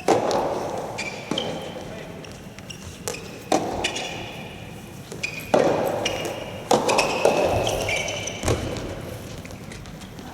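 Soft tennis rally: the rubber ball is struck by rackets and bounces, about every one to two seconds, each sharp hit ringing on in a large hall.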